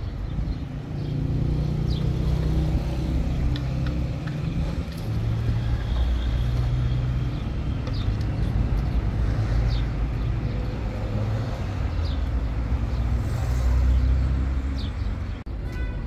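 An engine running steadily, its pitch shifting up and down every second or two, with a few faint short high chirps over it.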